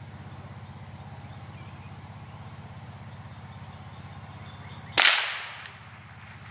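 A single gunshot from a long gun about five seconds in, cracking sharply and ringing out for under a second, over a steady low hum.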